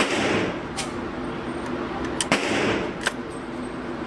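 Several gunshots echoing in an indoor shooting range. The loudest crack comes right at the start, and further sharp reports follow about a second in, twice close together around two seconds in, and again near three seconds. A steady hum of the range runs underneath.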